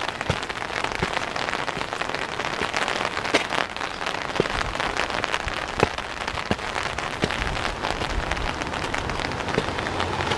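Steady rain falling, with many single drops ticking sharply close by.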